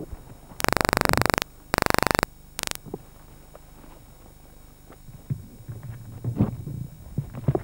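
Two loud bursts of harsh electronic buzzing, the first about a second long and the second shorter, then a brief blip. After that come irregular footsteps through forest undergrowth in the second half.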